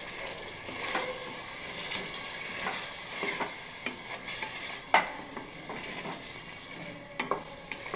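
Chicken in a tomato-and-yogurt masala sizzling as it is fried on full flame, stirred with a wooden spoon in a heavy-bottomed metal pot. Scattered knocks and scrapes of the spoon against the pot run over the steady sizzle, the sharpest about five seconds in.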